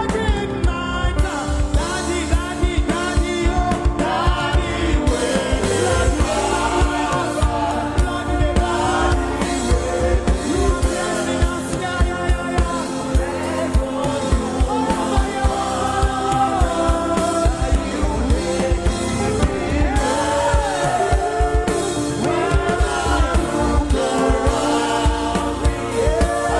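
Gospel worship song: singing over a steady drum beat and band accompaniment.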